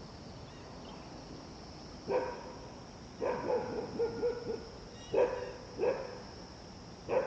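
A dog barking: one bark, then a quick run of several barks, then three more single barks, over a steady high drone.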